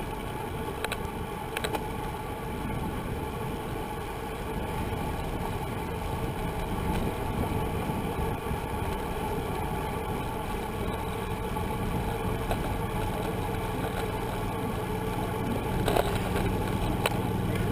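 Steady rushing wind and road rumble on a road bicycle riding at race speed, picked up by a handlebar-mounted camera, with a few light clicks.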